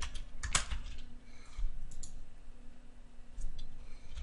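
A handful of separate computer keyboard keystrokes, sharp clicks with pauses between them, the loudest about half a second in. A faint steady low hum sits underneath.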